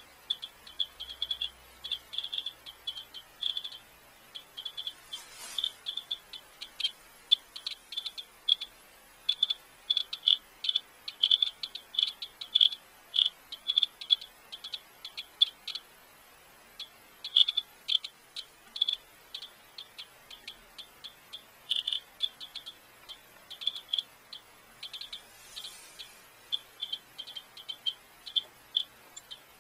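IT-65 Geiger counter clicking rapidly and irregularly, each click a short high tick, with its probe held against dust wiped from a CRT television. The count rate is above background, the sign of radioactive contamination in the dust.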